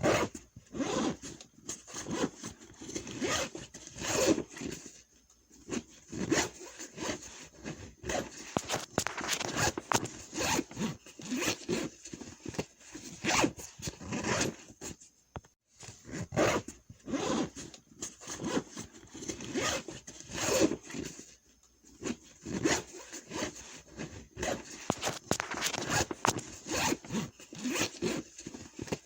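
Backpack zippers being pulled open and shut, again and again, in short irregular strokes with a few brief pauses.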